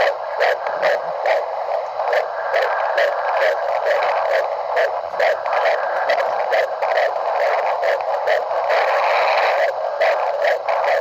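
Fetal heartbeat picked up by a Doppler monitor: rapid, regular beats over a steady hiss.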